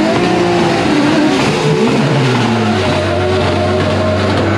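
900 hp turbocharged Toyota 2JZ straight-six in a drift car, heard from inside the cabin. It revs hard with its pitch rising and falling, then holds one steady note from about halfway through, on the run where its oil pressure dropped below 1 bar at high rpm.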